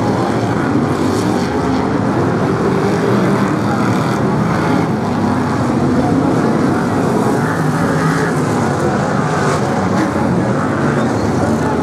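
BriSCA F1 stock cars' V8 engines racing, several engines at once in a loud, steady, continuous din.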